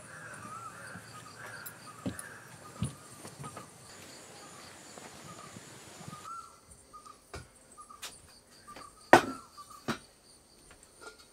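Insects chirring steadily with birds chirping over them in a garden. About six seconds in the background drops, and a few sharp knocks of kitchen vessels being handled follow. The loudest knock comes about nine seconds in and rings briefly.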